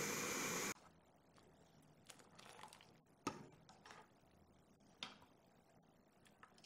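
Water at a rolling boil in a wok of shredded potatoes, cut off abruptly under a second in. Then quiet, with light scrapes and two sharp clicks of a wire strainer and chopsticks against the wok as the potatoes are lifted out.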